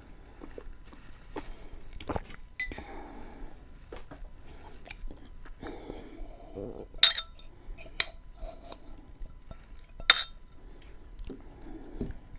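Close-miked chewing and mouth sounds of eating soft beans with onion and tomato, with three sharp clinks of cutlery against a dish in the second half, the loudest sounds.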